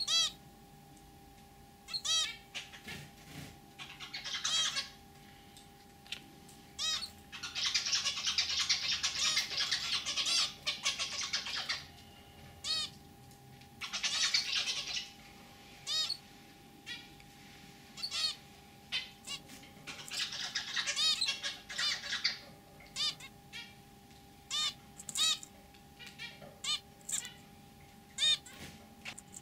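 Zebra finches calling, with many short nasal beeping calls, and a male zebra finch's buzzy, throaty song in several bouts. The longest bout runs from about 7 to 12 seconds in, with shorter ones near 14 and 20 seconds.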